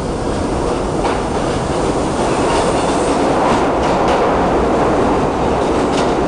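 R68A subway train running past along the platform, its steel wheels clattering over the rail joints with a few sharp clicks. It grows louder from about two seconds in as the cars come alongside.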